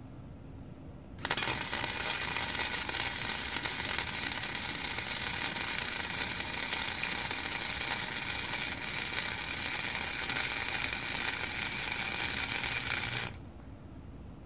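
Wire-feed welder arc crackling steadily as it lays one continuous weld bead on steel angle iron. It strikes about a second in and cuts off abruptly near the end.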